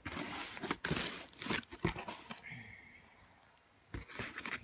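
Plastic bubble wrap and packing crinkling and crackling as hands rummage through a packed cardboard box. The rustling dies away a little past halfway, then starts again near the end.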